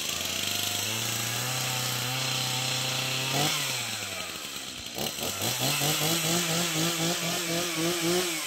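Chainsaw running at high revs while cutting the old black locust tree. It eases off about three and a half seconds in, revs up again about a second later with a wavering pitch, and drops away near the end.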